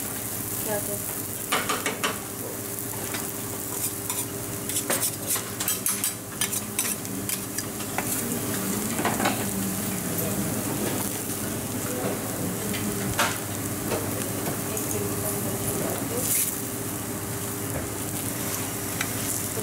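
Dosa and its vegetable-paneer masala filling sizzling on a flat steel griddle while a metal spatula chops, spreads and scrapes the filling over it. Sharp clicks and scrapes of the metal blade on the hotplate come at irregular intervals over a steady sizzle.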